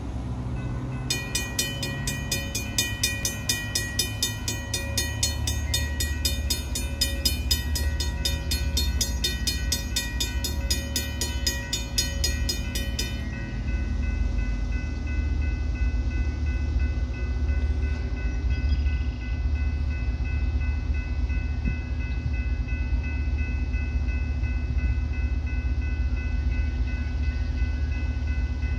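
An approaching diesel-hauled BNSF coal train, its locomotives giving a steady deep rumble. A loud, high, rapidly pulsing warning signal sounds from about a second in until about halfway through, then fainter steady tones carry on over the rumble.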